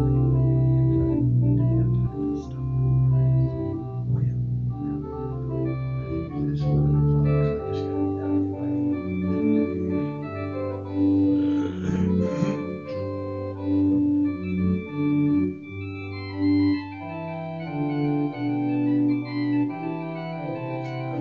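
Church organ playing slow, sustained chords as a prelude before Evensong; the deep bass notes drop away about eight seconds in.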